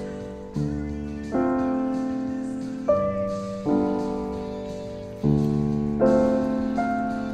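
Background piano music: slow chords, each struck and left to fade, about one a second.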